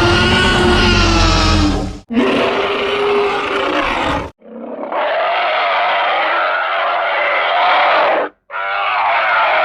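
Cartoon monster roar sound effects: a run of long roars split by short breaks. The first two are deep with a heavy rumble underneath; the later two are thinner and higher, without the low end.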